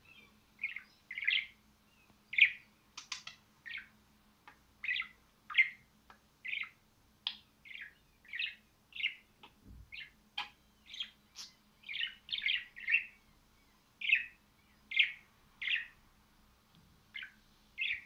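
A budgerigar chirping over and over in short, sharp chirps, one or two a second, sometimes in quick clusters.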